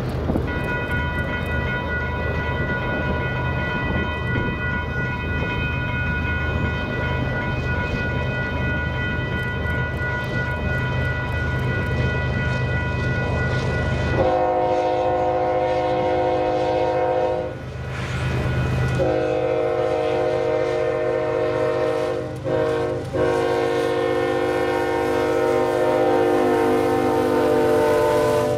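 Union Pacific GE Evolution-series diesel locomotive sounding its multi-note air horn in long blasts as the train approaches, over a steady low engine rumble. The horn is higher and fainter at first, turns much louder and fuller about halfway through, breaks off for a second or two, and then sounds again as the locomotives draw level.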